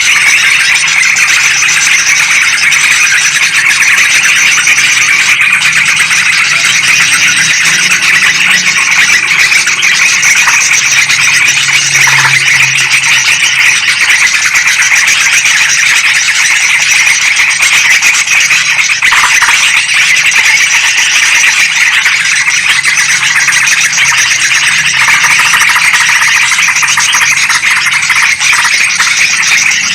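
Dense, unbroken chattering of yellow-vented bulbuls and sooty-headed bulbuls, loud and busy, calling excitedly as a lure track to draw wild bulbuls in.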